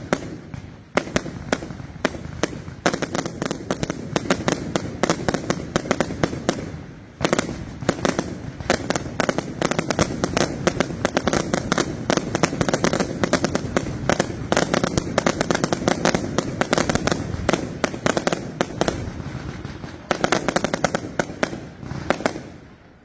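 Firework batteries firing rapid, dense volleys of bangs and crackling reports, with brief lulls a third of the way in and again near the end.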